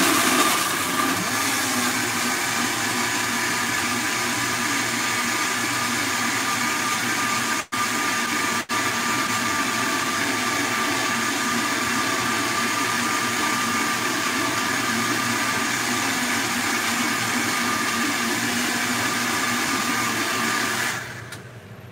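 Countertop blender running steadily at high speed, blending ice into lemon concentrate. The motor cuts out for a split second twice, about eight seconds in, and stops shortly before the end.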